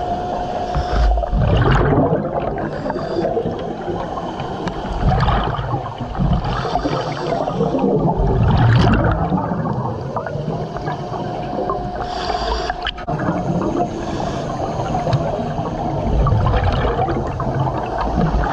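Underwater sound through a diver's helmet: bursts of gurgling bubbles every three to four seconds, with a steady hum at times.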